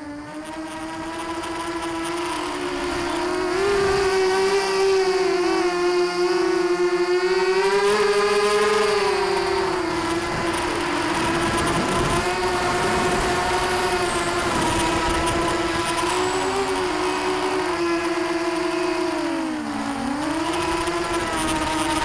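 FPV racing quadcopter's electric motors and propellers whining: a steady pitched buzz that bends up and down with the throttle, dipping briefly twice near the end.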